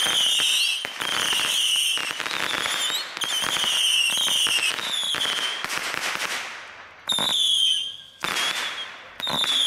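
A ground-launched firework firing a rapid series of whistling shots into the air, about one a second. Each shot is a short, shrill whistle that falls slightly in pitch, with crackling and hissing between them.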